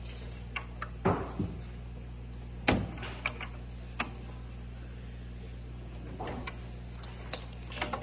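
Scattered sharp plastic clicks and knocks, the loudest about three seconds in, as fingers press and push on the retaining tabs of an autoclave's rocker power switch to work it out of the front panel. A steady low hum runs underneath.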